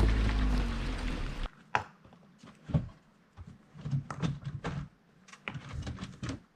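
A Jeep's engine running, heard from inside the cab, cuts off abruptly about a second and a half in. A scatter of short knocks and clicks follows.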